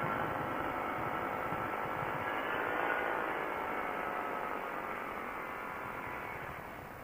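Quicksilver ultralight's engine running during a steep landing approach and touchdown. Its pitch lifts briefly about three seconds in, then eases off, and the sound grows quieter toward the end.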